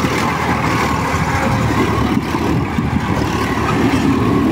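Massey Ferguson 5245 DI tractor's three-cylinder diesel engine running hard under heavy load, pulling a fully loaded trolley, with a steady, loud note throughout.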